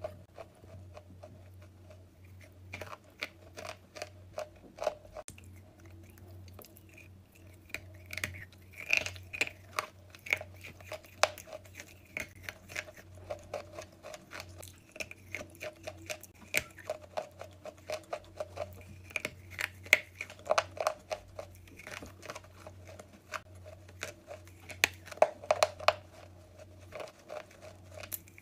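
Wet chalk being bitten and chewed close to the microphone: a long run of irregular crunches and crumbly chewing that grows denser and louder after the first few seconds, over a steady low hum.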